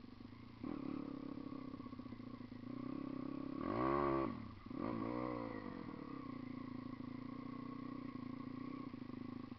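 Dirt bike engine running as the bike rides a trail, heard close up from on board. It is revved up and back down twice in quick succession around the middle, the first rev the louder, then settles back to a steady running note.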